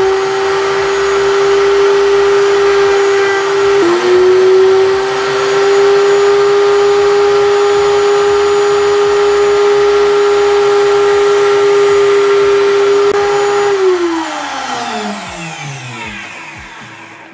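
Table-mounted router running at full speed with a steady high whine while a board's edge is fed against the starting pin into a bearing-guided decorative edge bit. The pitch dips briefly about four seconds in as the wood meets the spinning bit. The router is switched off about fourteen seconds in, and its whine falls steadily in pitch as it spins down.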